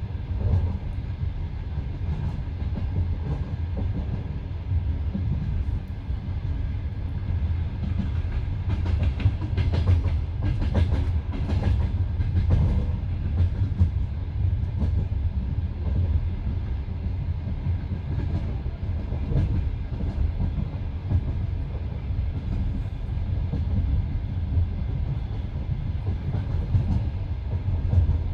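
Passenger train carriage running at speed with a steady low rumble, its wheels clacking over the rail joints. A denser run of sharper clacks comes about a third of the way in.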